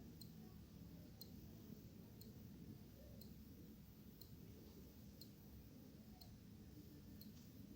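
Wall clock ticking faintly, one sharp tick about every second, over quiet low room hum.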